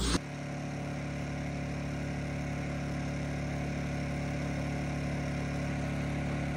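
A small engine running steadily at one constant speed, an even low hum that never changes pitch. It cuts in suddenly a moment in.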